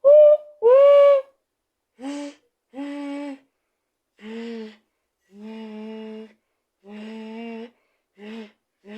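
A person imitating a train whistle: a series of about nine short hooting notes, the first two loud and higher-pitched, the rest quieter and lower.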